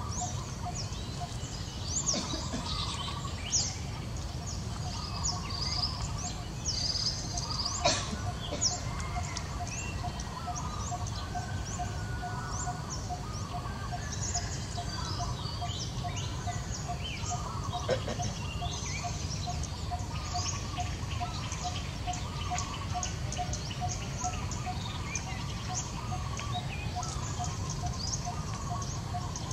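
Outdoor ambience of many small birds chirping, with a steady note repeated about twice a second over a low rumble. A few sharp clicks stand out briefly.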